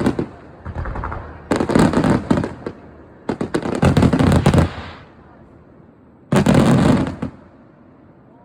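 Aerial fireworks going off in rapid crackling volleys: three dense bursts of crackle about a second long each, with quieter gaps between, after the tail of one more at the start.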